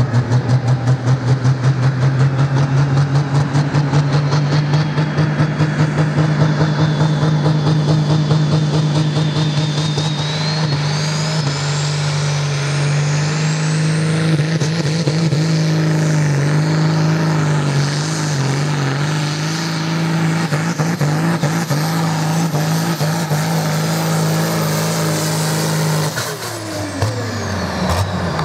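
Competition pulling tractor's engine running hard under load, with a high turbocharger whine climbing steadily through the middle of the pull. Near the end the throttle comes off and the engine and the whine wind down quickly.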